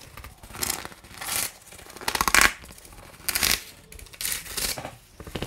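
Crinkling and rustling of a sealed courier package as hands tug and pry at its firmly glued flap, in about half a dozen short bursts.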